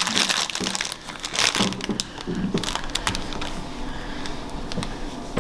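Crinkling plastic packaging being handled, with scattered small clicks and taps. The crackle is busiest in the first couple of seconds, then thins out to occasional clicks.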